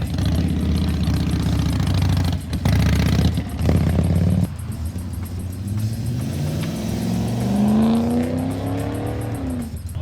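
Car engine running with a deep steady rumble, then accelerating, its note rising in pitch over about four seconds before dropping off near the end.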